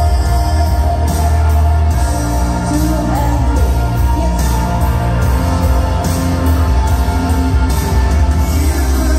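A line-dance song plays, with a singer's voice over a steady beat and a strong bass.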